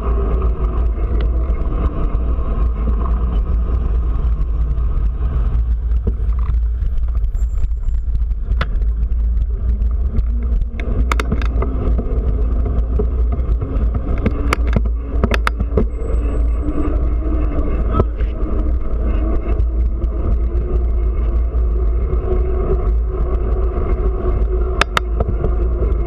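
Steady wind buffeting on the microphone of a bicycle-mounted camera riding down a city street, with car engines in the traffic ahead slowly rising and falling in pitch. A few sharp clicks come around the middle and once near the end.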